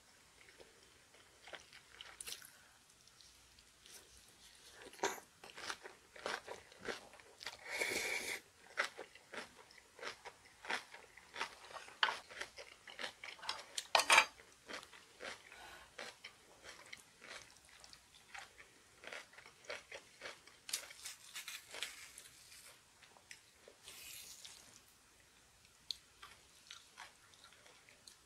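Close-up chewing of kimchi: many short wet crunches and clicks of the mouth, loudest about halfway through.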